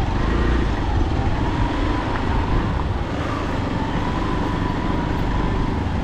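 A motor vehicle running: a steady low rumble with a faint wavering whine above it.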